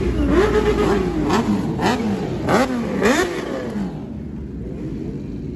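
Several superbike engines being revved, their pitches overlapping as they climb and fall, with a few sharp loud blips in the middle. They then settle back to a steady low running sound near the end.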